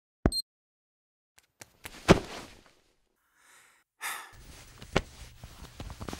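Animated-film sound effects with breathy character vocal sounds: a short click with a high ring near the start, a sharp hit about two seconds in, then a rush of noise over a low hum with two more hits near the end.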